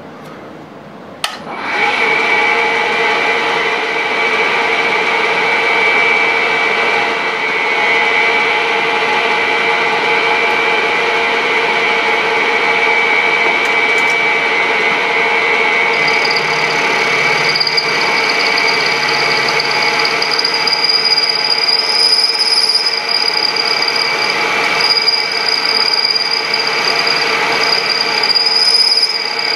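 Vertical milling machine's spindle starts about a second and a half in, then runs steadily while an end mill cuts a slot into a small metal part. A high whine joins about halfway through as the cut gets under way.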